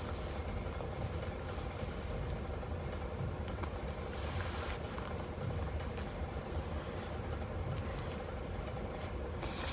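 Steady low hum of a room heater running, with a few faint ticks as the metal hook-and-eye clasps of a waist trainer are worked closed.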